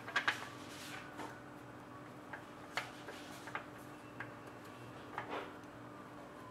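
Scattered light clicks and taps at irregular intervals, about a dozen, from hands handling cards and small objects on the tabletop, over a faint steady hum.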